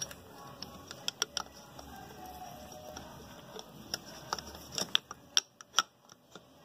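Irregular light clicks and taps of a metal piston sleeve being turned and pressed by hand into the cylinder bore of a Comet APS 41 diaphragm pump, with a run of sharper clicks from about four seconds in as it is seated.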